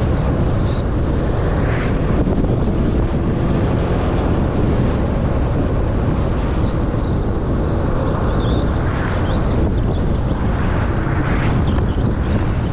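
Wind buffeting the microphone: a loud, steady rumble with a few brief swells, and faint short high chirps over it.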